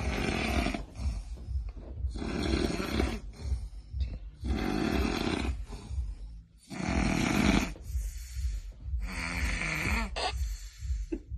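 A person snoring: five snores in a steady rhythm, each about a second long and coming roughly every two and a quarter seconds.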